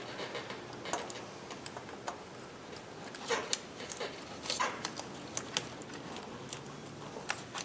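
Scattered light metallic clicks and taps as a direct-injection fuel rail is worked down over the injectors and onto its mounting studs. They come a little louder and more often from about three seconds in.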